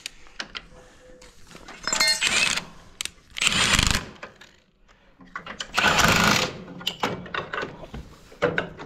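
A power tool runs in three short bursts of under a second each, likely working a fastener on the header's chopper knives.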